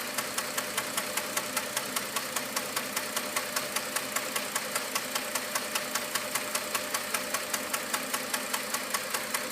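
3.7-litre V6 engine idling with a steady, sharp ticking about five times a second; the engine has a misfire.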